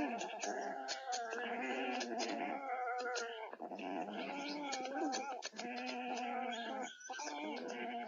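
A run of wavering animal cries, nearly unbroken, with brief breaks about three and a half, five and a half and seven seconds in, over a dense scatter of faint clicks.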